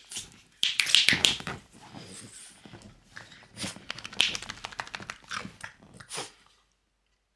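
French bulldog making its odd breathing noises: a loud noisy burst about a second in, then several shorter bursts mixed with clicks, falling quiet near the end.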